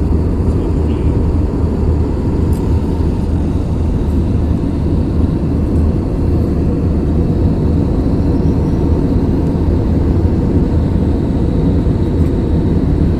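Steady cabin noise inside a jet airliner in cruise flight: engine hum and rushing air, heaviest in the low range, with a faint steady whine above it.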